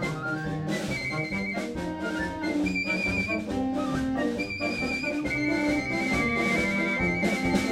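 Wind band playing together: brass and woodwinds holding sustained chords, with a few percussion accents.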